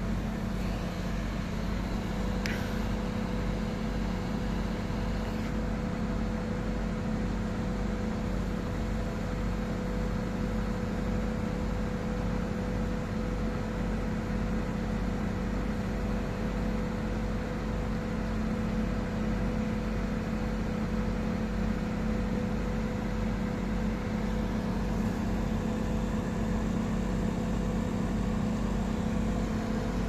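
The MAN truck's diesel engine runs steadily under load, powering the hydraulics of the truck-mounted Schwing Stetter concrete pump as its boom is raised. It makes a continuous drone with a constant hum.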